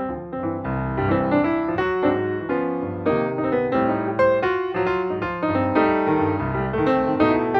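Background music led by piano, with clearly struck notes and chords at a steady, moderate pace.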